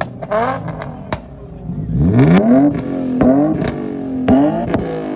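Car engine revved hard: a steep climb in pitch about two seconds in, then several quick rev blips in a row, the way a driver works the throttle during a burnout.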